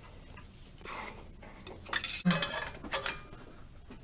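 Metal hand tools and bolt hardware clinking against each other and the engine parts during alternator refitting. One sharp, ringing clank comes about two seconds in, followed by a few lighter clicks.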